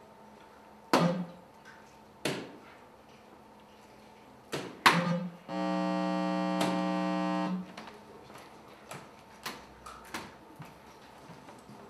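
Electronic soft-tip dart machine, likely a Tiga, registering three darts in turn: each hit gives a sharp impact with a short electronic effect. About half-way through, a steady electronic buzzer tone sounds for about two seconds, the machine's signal for a bust.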